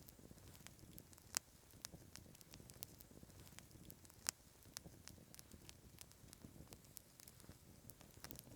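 Wood fire crackling: scattered small pops, with two louder snaps about a second and a half in and just past four seconds in, over a faint low rumble.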